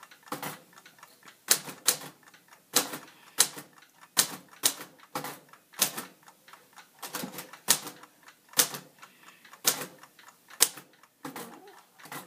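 Keys of a 1954 Royal typewriter being struck one at a time, as sharp clacks at a slow, uneven pace of about one or two a second.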